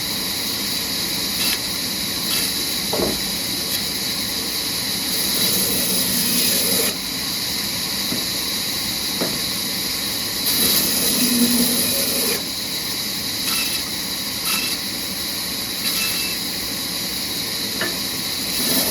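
Sawmill machinery running while logs are sawn: a steady hissing noise with scattered knocks and clicks, louder for a stretch about ten to twelve seconds in.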